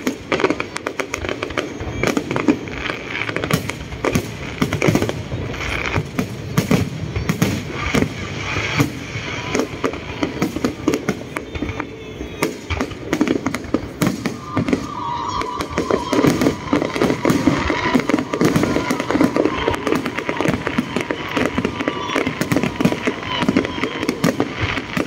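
Fireworks going off in a dense barrage, rapid cracks and bangs overlapping without pause.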